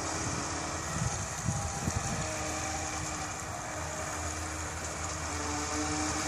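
Radio-controlled speedboat's motor running as the boat circles on a pond: a steady, distant hum with a faint even tone, together with the hiss of its hull on the water.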